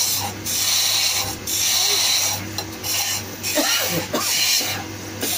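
Hand chisel cutting a wooden spinning-top blank on a simple homemade wood lathe: a rasping hiss of the tool shaving the spinning wood, breaking off briefly about once a second, over the lathe drive's steady low hum.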